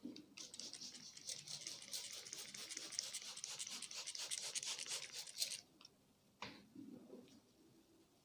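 Hands rubbing briskly over the head in a massage, a fast, dry, scratchy rubbing that lasts about five seconds and stops suddenly. A single sharp click comes about a second later.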